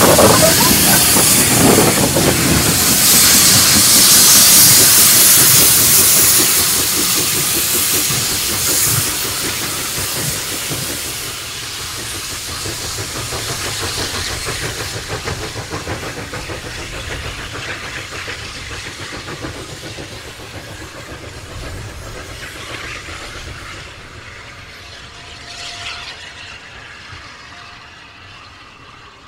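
Orenstein & Koppel steam tank locomotive O&K No. 1 hissing loudly as steam blows from its cylinders, with the train running along the rails. The sound fades steadily as the locomotive moves away.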